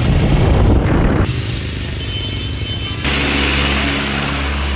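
Road traffic and vehicle noise, broken by abrupt cuts into separate stretches, ending in a steady low hum.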